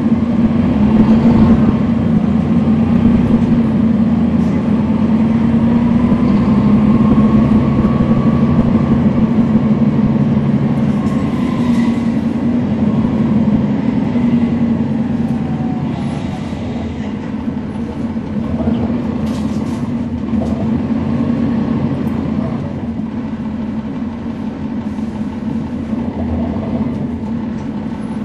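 Rear-mounted Cummins ISL9 diesel engine of a 2011 NABI 416.15 transit bus heard from the back seats, running under way with a steady low drone. A whine climbs and then falls over the first half, and the engine eases off and gets quieter in the second half.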